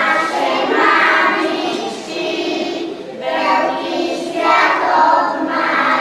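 A group of young children singing a song together in unison, in phrases with short breaks between them.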